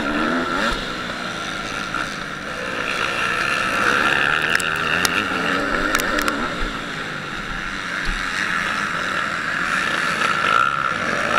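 MX2 motocross bikes racing on the track, several engines running at once and revving up and down as they go round.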